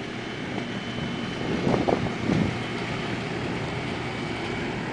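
Steady outdoor mechanical background hum, with a faint high steady tone running through it and a brief louder wavering sound about two seconds in.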